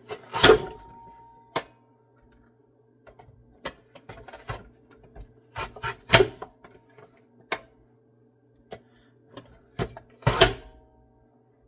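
Plastic push-down vegetable chopper being worked to dice cucumber: its hinged lid is pressed down through the grid of blades in sharp plastic clacks. Loud clacks come about half a second in, around six seconds in and near the end, with lighter clicks and taps of the plastic parts between them.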